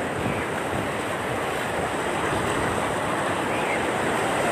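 Floodwater rushing across a submerged road as a steady, even rush of noise.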